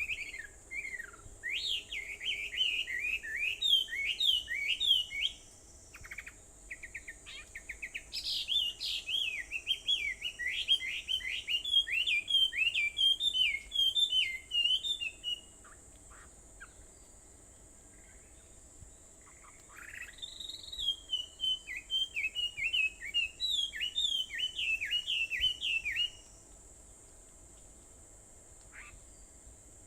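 A songbird singing three long bouts of rapid, sweeping whistled notes, with short pauses between the bouts. A steady high-pitched drone runs underneath.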